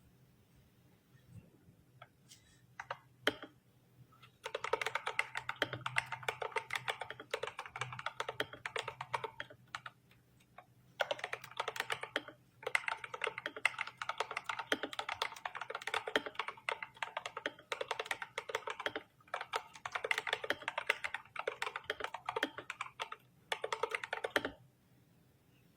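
IQUNIX OG80 mechanical keyboard being typed on quickly: a few single key presses, then long runs of rapid keystrokes broken by short pauses.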